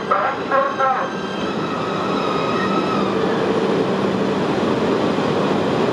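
New E5-series Shinkansen cars rolling slowly over the rails: a steady rumble of wheels on track, with a few faint steady whining tones above it.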